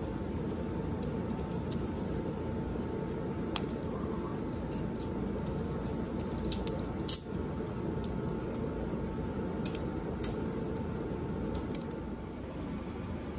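Steady low background hum with a few light, sharp clicks and ticks scattered through it, as pine chips and shavings drop onto concrete during carving; the sharpest click comes about seven seconds in.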